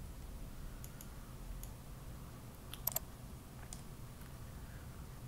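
A few light computer mouse clicks, the sharpest a quick double click about three seconds in, over a low steady hum.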